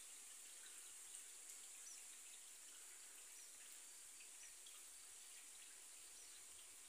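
Near silence: faint outdoor ambience, a steady high hiss with a few faint chirps and small ticks.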